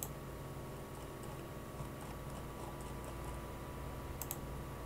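A few computer mouse clicks, one right at the start and a quick pair about four seconds in, with fainter ticks between, over a steady low electrical hum from the computer setup.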